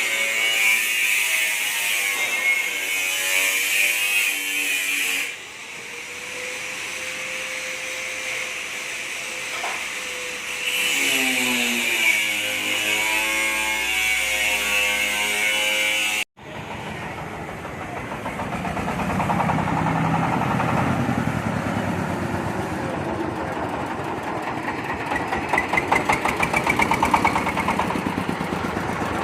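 Background music with a singing voice; then, after a sudden cut about 16 seconds in, the engine of a corn sheller machine running steadily with a fast, even beat.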